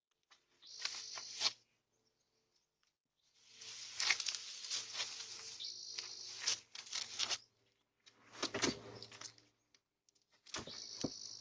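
Tree-trimming work: four bursts of crackling and rustling with sharp clicks, the longest about four seconds, with a faint low hum under them and near silence between.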